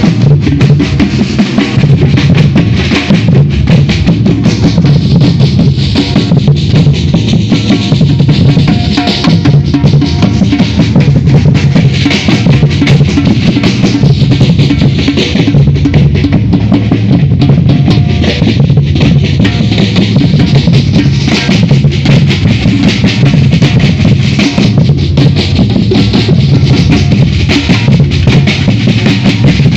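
Batucada drum ensemble playing a loud, continuous Brazilian samba rhythm: deep bass drums under dense, rapid snare and higher drum strokes.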